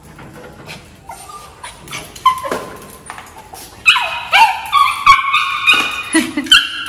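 Maltese dog whining in excited greeting: a few soft cries at first, then a rapid string of high-pitched whines from about four seconds in.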